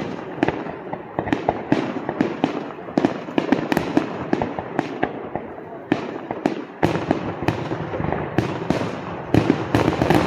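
Aerial fireworks display: shells bursting one after another, with sharp bangs and crackling several times a second.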